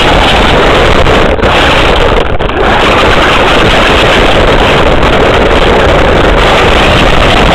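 Radio-controlled model car driving, heard from a camera riding on its rear spoiler: a loud, overdriven rush of wind and rolling noise, with a faint motor whine rising and falling. The rush dips briefly twice, a little over a second in and again around two and a half seconds.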